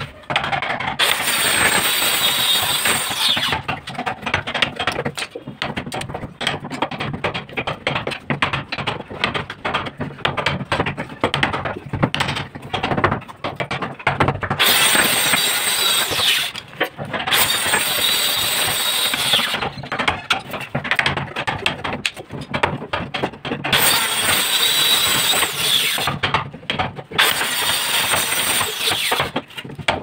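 Hand chisel cutting and prying wood out of a lock mortise in the edge of a wooden door: rapid crackling and scraping of the wood, with spells of denser, steady scraping about a second in, around the middle and near the end.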